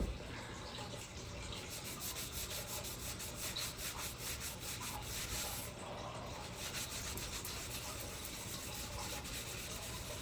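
Hand scrubbing on the stained copper body of an early-1900s fire extinguisher, a run of quick back-and-forth rubbing strokes with a short break about six seconds in.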